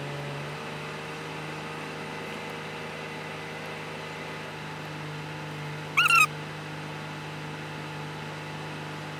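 Car engine idling, a steady low hum heard inside the cabin, with one short, high-pitched squeak about six seconds in.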